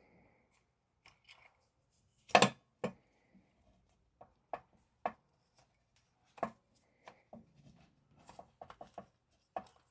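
Scattered small clicks and knocks of air-compressor regulator parts being handled and fitted back together, the loudest about two and a half seconds in and a quick run of them near the end.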